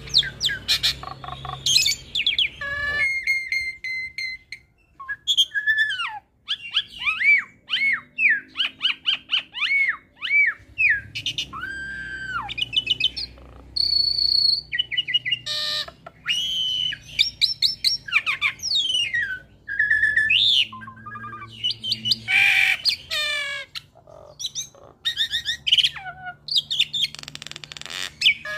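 Caged Jalak Suren × Jalak Nias hybrid starling singing a long, varied babbling song. It runs quick chirps, whistles that rise and fall, and short harsh rasping notes together, with brief pauses between phrases.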